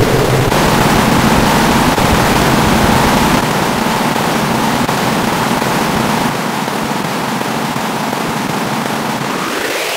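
Loud, harsh wash of distorted noise with a faint steady hum beneath it, dropping in loudness in steps about a third and two thirds of the way through and fading near the end.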